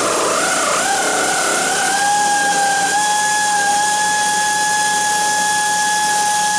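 A power drill running continuously, its pitch wavering under load for the first second or so and then holding steady.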